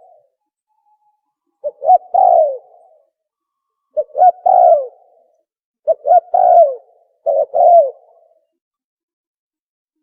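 Spotted dove ('tukmo') call, played as a hunting lure: four cooing phrases about two seconds apart, each a couple of short notes and then a longer, falling coo. Silent for the last second and a half.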